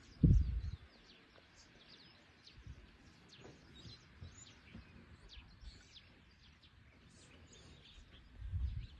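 Small birds chirping with many short, high calls over a faint outdoor hush. A loud low thud comes about a quarter second in, and a low rumble builds near the end.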